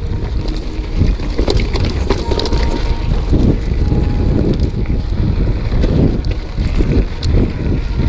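Wind buffeting an action camera's microphone on a mountain bike's handlebars, mixed with the rattle and frequent knocks of the bike riding fast over rough dirt singletrack.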